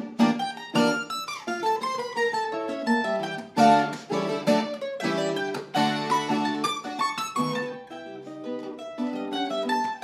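A Colombian bambuco played on bandola and tiple: the bandola plucks the melody while the tiple strums chords, with a slightly softer passage a little before the end.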